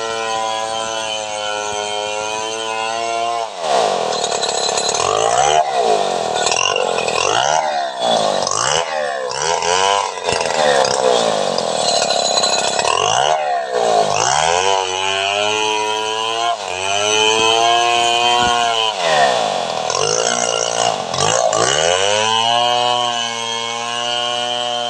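A large two-stroke chainsaw ripping lengthwise along a long log. Its engine holds a steady pitch for the first few seconds, then dips and climbs back again and again, about once a second, as it works under load, with a few slower swells near the end.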